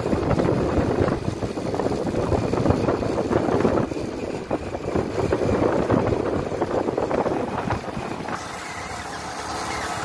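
Motorcycle running while being ridden along a road, heard from a camera mounted on the bike. About eight seconds in the sound turns smoother, steadier and a little quieter.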